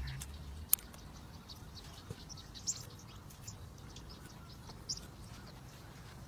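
Outdoor ambience with short, high bird chirps a few times, and a sharp click about a second in with a few softer clicks later.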